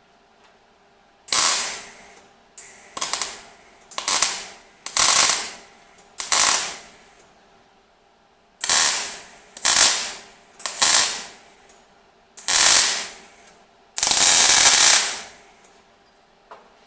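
Welder laying a run of short tack welds on a steel tailgate repair panel: about ten separate crackling bursts with gaps between them, the last one held a little longer.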